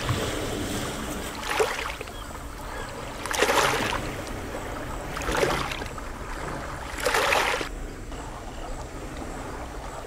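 Small waves lapping and washing over shoreline rocks, surging four times about every two seconds over a steady wash of water.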